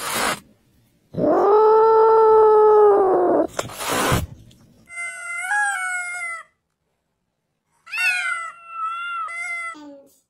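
Cat yowling: one long, steady howl of about two seconds, then two shorter cries whose pitch wavers.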